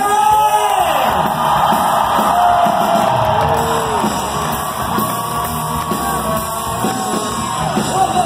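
Live rock band playing loudly, with a lead electric guitar bending notes up and letting them fall back over the band, and shouts from the crowd.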